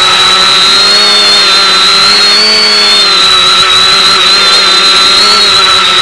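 Quadcopter's electric motors and propellers whining steadily while it hovers, heard through the onboard camera microphone over the analog video downlink with a constant hiss. The pitch wavers slightly up and down as the motors adjust.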